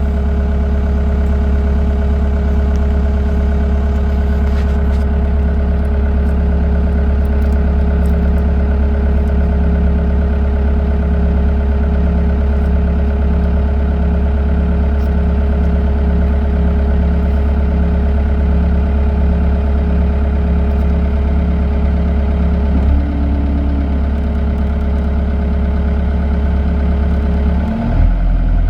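Caterpillar 242D3 skid steer loader's diesel engine idling steadily, with a brief change in its note near the end.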